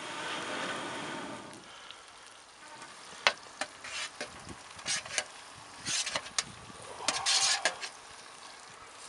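Metal spatula scraping and tapping on a metal baking tray as chopped coriander is pushed off it into the pot, a series of sharp clicks and short scrapes from about three seconds in, the loudest near the end. Before that, a soft steady hiss.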